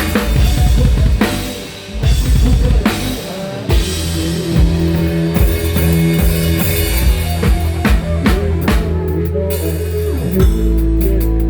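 Rock band sound check dominated by the drum kit: kick drum, snare and cymbal hits, with a short lull just before two seconds in. From about four seconds in, held low notes from the band's other instruments sound under the drumming.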